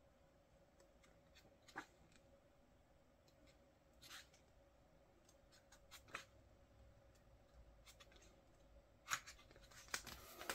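Pages of a thick photobook being turned by hand: faint, scattered paper flicks and rustles a second or two apart, the loudest cluster near the end.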